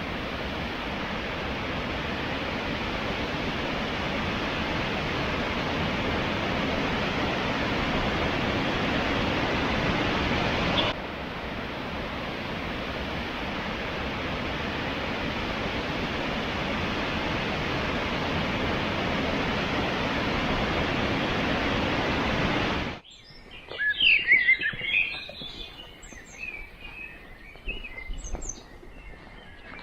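Waterfall rushing with a steady, even noise that breaks off sharply about eleven seconds in, resumes at once, and stops abruptly after about twenty-three seconds. Small birds then chirp against a much quieter background.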